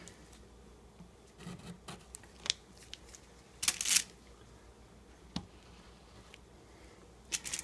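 Plastic spreader scraping excess epoxy off a particle board resonator box, with a few short scrapes and rustles; the loudest comes about four seconds in.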